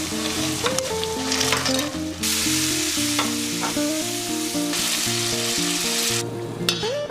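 Food sizzling and being stirred in hot oil in a pan, with a steady frying hiss that drops away near the end. Light background music plays underneath.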